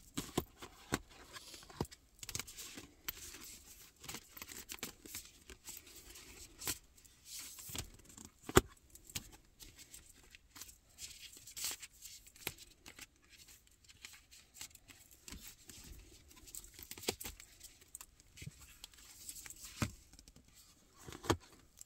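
Oracle cards being shuffled and handled: irregular soft clicks, snaps and rustles of card stock, with a sharper snap about halfway through.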